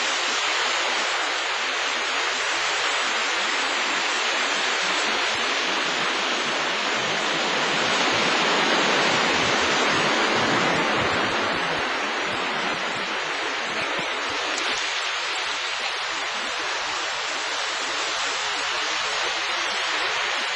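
Surf washing onto a sandy beach: a steady rush of waves that swells about halfway through and then eases.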